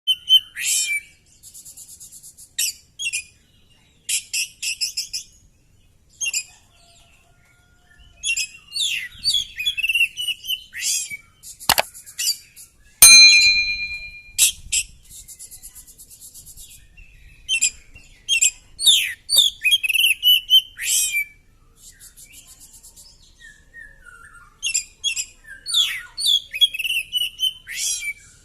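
Oriental magpie-robin singing a loud, varied song: whistled phrases alternating with fast, buzzy rattling trills, separated by short pauses. Two sharp clicks fall near the middle, the second the loudest sound, followed by brief steady tones.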